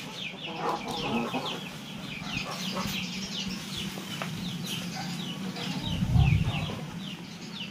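Chickens clucking and peeping, a steady run of short high calls that each fall in pitch. A low thump about six seconds in.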